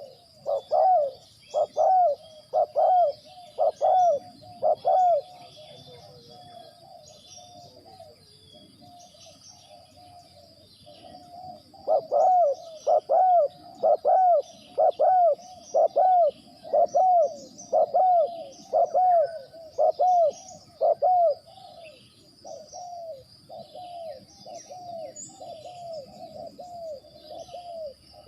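Spotted dove cooing: quick strings of arched coos at about one to one and a half a second, loud at the start and again in a long run in the middle, with softer coos in between and near the end. Faint high chirps of small birds and a thin steady high insect-like tone run underneath.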